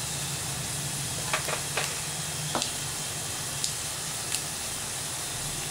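Garlic cloves frying in oil in a stainless-steel pot under freshly added ground spices: a steady sizzle with a few scattered sharp pops.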